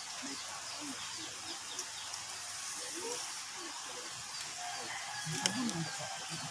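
Outdoor garden ambience with faint bird calls against a steady hiss, and one sharp click about five and a half seconds in.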